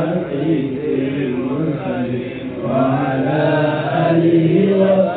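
A man's voice chanting Arabic devotional verse (sholawat) solo into a handheld microphone, in long held notes that bend and waver.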